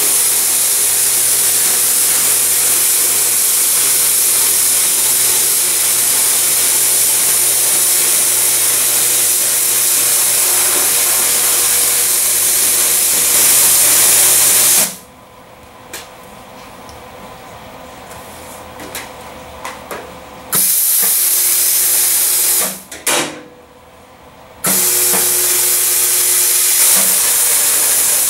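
Snap-on YA2225 plasma cutter with an Alpha 3A air torch cutting sheet steel: a loud steady hiss of the air and arc. It stops about halfway through for several seconds, comes back briefly, stops again, then resumes.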